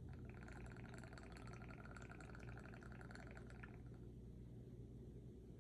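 Vodka poured from a jar's pour spout into a shot glass: a faint trickle whose pitch rises steadily as the glass fills, stopping about three and a half seconds in.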